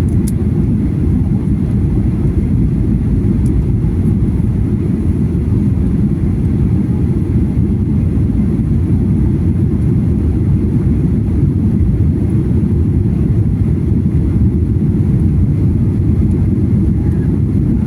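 Airliner cabin noise during the descent before landing: a steady low rumble of jet engines and rushing air.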